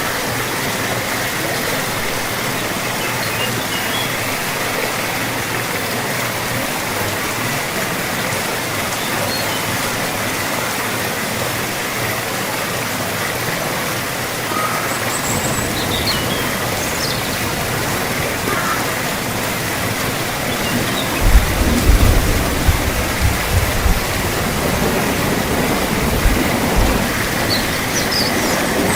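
Steady rain falling, an even dense hiss. From about halfway a deeper low rumble joins in, with a cluster of low thumps about three-quarters of the way through.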